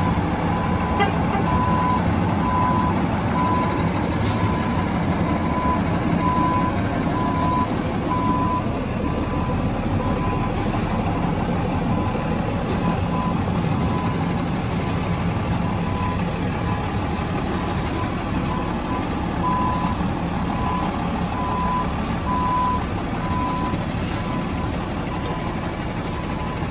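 Front-loading garbage truck backing up: its diesel engine runs steadily under a back-up alarm beeping about one and a half times a second. The beeping fades in the middle stretch and comes back loud near the end.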